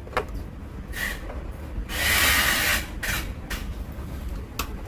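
Handling noise from hands working an audio mixer: a few light clicks and a rustling rub of just under a second about two seconds in, over a low steady hum.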